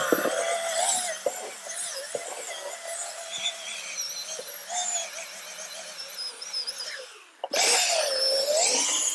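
Corded Milwaukee 4.5-inch angle grinder grinding out the cracked steel around a semi truck's kingpin to prepare it for welding: a high whine whose pitch wavers as the disc bites. It dies away about seven seconds in, then starts again, its pitch dipping under load and rising back.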